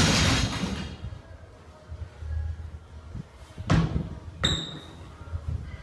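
Barbell loaded with bumper plates dropped onto the rubber gym floor after the last rep of a set, landing with a loud bang that rattles on for nearly a second. A second, lighter knock follows about four seconds in.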